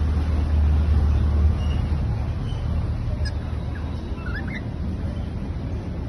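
A few short, faint cockatiel chirps, the clearest a quick rising pair about four and a half seconds in, over a steady low rumble.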